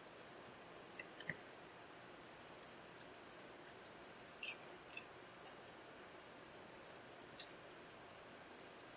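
Faint, scattered small clicks and ticks of a precision screwdriver and screws being worked into the metal core bracket on the back of a graphics card, over a quiet steady hiss. The loudest click comes about a second in, with a short cluster near the middle.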